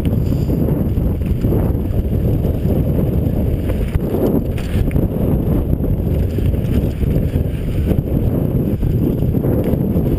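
Wind buffeting the microphone of a bike-mounted action camera while a mountain bike rides along a rocky dirt singletrack. It is a steady loud rumble, with the bike rattling over stones and ruts.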